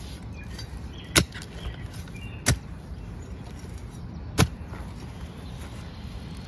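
A digging tool striking into the ground three times, sharp single blows about a second and a half to two seconds apart, as a planting hole is dug.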